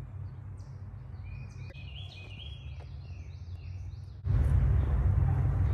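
Small birds chirping in short, repeated calls over a steady low outdoor rumble. A little over four seconds in, a much louder rumble and hiss on the microphone sets in suddenly and covers them.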